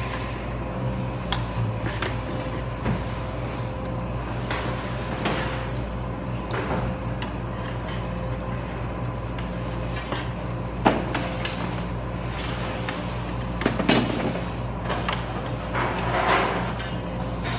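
Metal serving tongs clicking and tapping against metal baking trays as pan dulce is picked off a bakery rack: a scattering of sharp clinks, the sharpest about eleven seconds in, over a steady hum.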